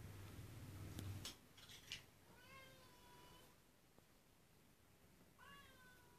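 Domestic cat meowing twice, faintly: a longer call with a falling then level pitch, and a shorter one near the end, after a few light clicks in the first two seconds.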